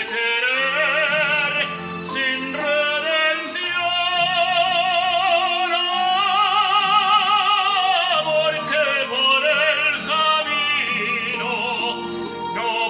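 A man singing a love song in an operatic style, with long held notes and wide vibrato, over an instrumental backing.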